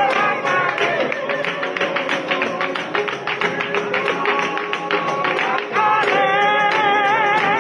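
Music: a fast, rhythmic guitar-like plucked or strummed accompaniment under a bending melody line.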